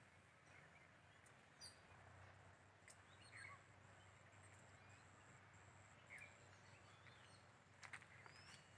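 Near silence: faint outdoor background hiss with a few brief, faint bird chirps, and a few soft clicks near the end.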